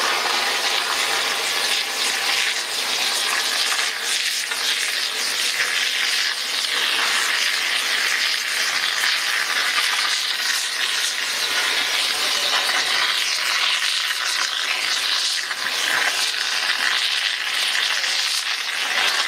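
Steady, loud hiss of steam escaping from the ČSD class 354.1 steam tank locomotive 354.1217.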